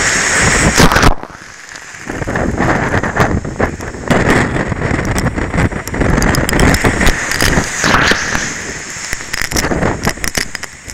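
Hurricane wind blowing hard across the microphone, with storm-surge waves crashing and washing over a concrete seawall. The noise drops sharply about a second in and comes back about a second later.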